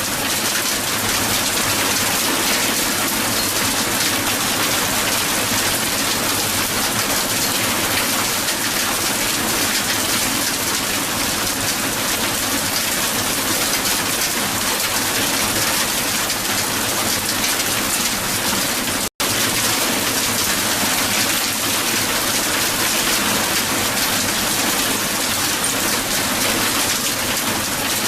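Hail falling hard on the ground, a dense, steady hiss of countless small impacts. The sound cuts out completely for an instant about 19 seconds in, then resumes unchanged.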